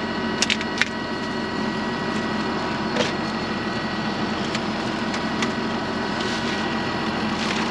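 Tractor engine running steadily, with a few sharp clicks in the first second and another about three seconds in.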